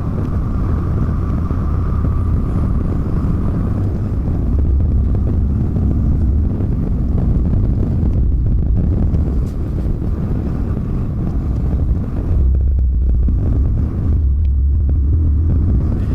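Volvo semi-truck rumbling steadily on the road: a deep, continuous engine and road rumble under a hiss of road and wind noise, with a faint steady whine in the first few seconds.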